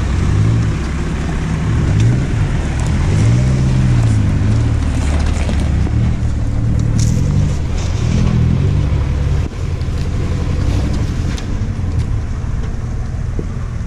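Nissan Patrol ute's TD42 turbo-diesel engine working at low speed, its revs rising and falling as it crawls through a deep rocky rut. Around the middle come a few sharp knocks and scrapes from tyres and rock.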